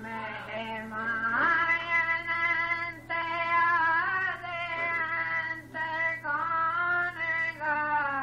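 A woman singing a devotional shabad solo, holding long notes and sliding between them, over a steady low hum.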